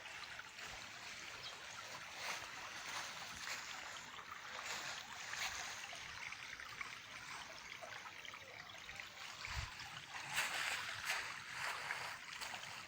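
Small stream trickling and running steadily over its bed, a little louder about ten seconds in.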